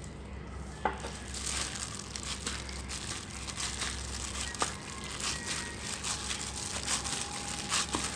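Hands in thin disposable plastic gloves kneading mashed steamed purple yam dough in a plastic bowl. The gloves crinkle and the dough squishes in an irregular, rapid crackle that starts about a second in, with a few sharper clicks.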